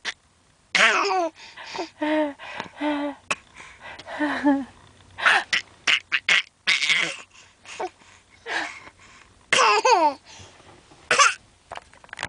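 Baby laughing in short bursts, some of them breathy laughs that sound like coughing, between babbles.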